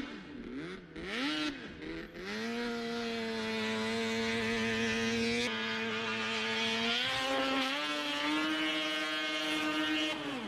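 Snowmobile engine blipped a few times, then held at full throttle for the run-up to the jump, its pitch stepping up higher in the second half. The note cuts off sharply near the end.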